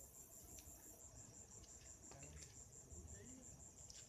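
A night insect calling faintly in a steady, rapid high-pitched pulse, about six or seven pulses a second, with a few faint clicks over it.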